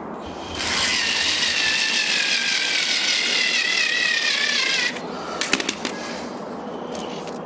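A small hand-held power drill running as it bores into a horse's fibreglass hoof cast. Its whine sets in about half a second in and slowly falls in pitch under load. It stops about five seconds in, followed by a few sharp clicks.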